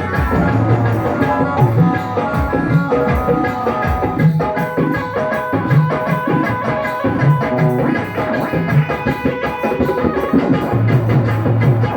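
Instrumental interlude of a devotional bhajan: a hand drum such as tabla or dholak keeps a steady beat under a melody instrument playing held notes.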